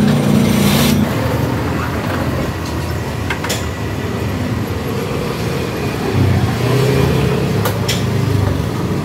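Steady street traffic noise, with a low engine hum swelling about six seconds in and a few sharp clicks.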